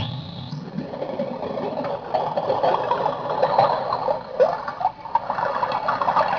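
Circuit-bent sound effects toy in drone mode playing through an amplifier: a dense, glitchy crackling and chattering of rapid clicks, growing louder about two seconds in.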